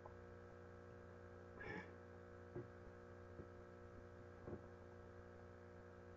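Near silence: a faint steady electrical hum from the recording, with a few soft ticks.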